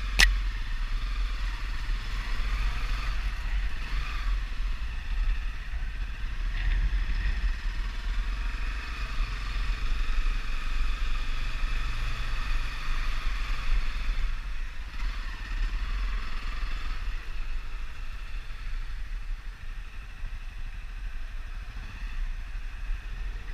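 Honda 250 motorcycle engine running steadily as it rides along, a continuous low rumble under a hiss of air and road noise. A single sharp click comes right at the start.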